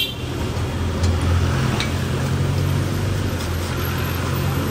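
Street traffic with a vehicle engine running nearby: a low, steady hum that grows stronger about a second in, over general road noise.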